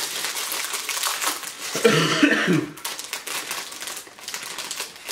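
Crinkling of a plastic snack bag being worked open by hand, a dense run of irregular crackles, with a brief sound from a voice about two seconds in.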